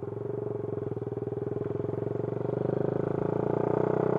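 Yamaha Sniper Classic 135's single-cylinder four-stroke engine, fitted with an aftermarket DSK CDI, running under way as the motorcycle rides along. The engine note is steady, growing louder over the last second or so.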